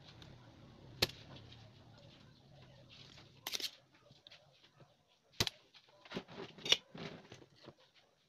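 Scattered sharp clicks and knocks of tools and small parts being handled on an electronics repair bench. There are about half a dozen, the loudest about a second in and another near the end.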